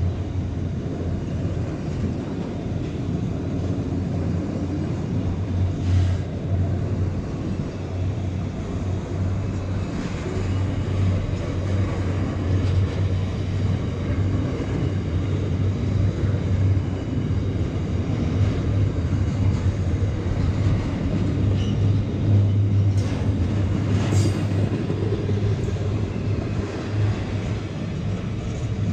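Container wagons of a long intermodal freight train rolling slowly past: a steady low rumble of steel wheels on rail, with a few sharp clicks and clanks from the wagons.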